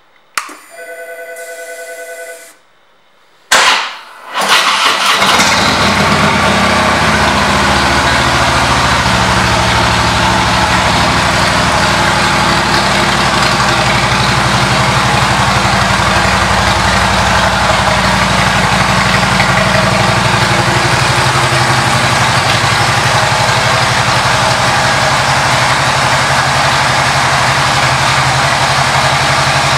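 2016 Harley-Davidson Police Road King's V-twin with a Rinehart exhaust being started: a click and a steady two-second whine, then the starter cranks and the engine catches about four seconds in and settles into a steady idle.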